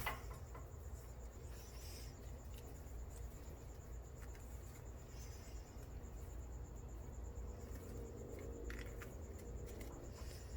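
Quiet workshop room tone: a low steady hum and a steady high-pitched whine, with a few faint clicks and rubs from transmission parts being handled.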